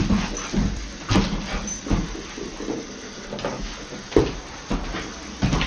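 A dog's paws and claws scrabbling and knocking on a hardwood floor as it paws at a small object, with sharp knocks about once a second.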